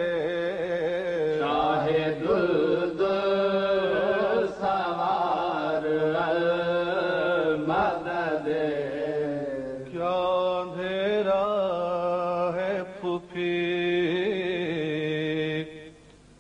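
A noha, a Shia mourning lament, chanted by a male voice in long, wavering sung lines. It breaks off briefly near the end.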